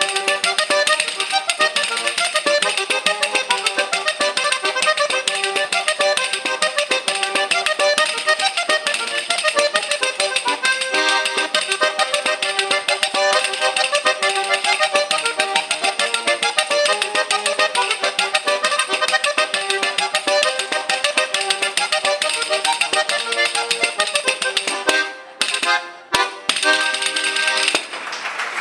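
Trikitixa (Basque diatonic button accordion) playing a brisk instrumental folk tune, with a pandero (Basque tambourine) beating time and rattling its jingles. Near the end the tune breaks into a few short stabbed chords and stops.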